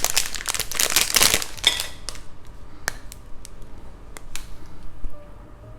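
A chocolate wrapper crinkling loudly for about two seconds as chocolate is unwrapped and broken, followed by a few light, separate clicks.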